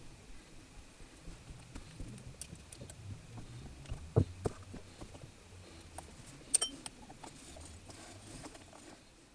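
Scattered light clicks and taps over a low hum, with two sharper knocks about four and six and a half seconds in.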